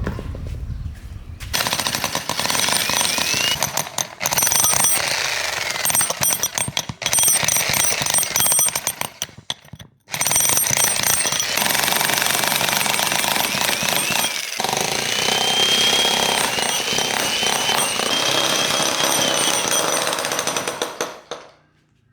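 Restored concrete chisel machine (demolition hammer) running and hammering rapidly in bursts. It starts about a second and a half in, pauses briefly a few times with a longer stop about halfway, and cuts off just before the end.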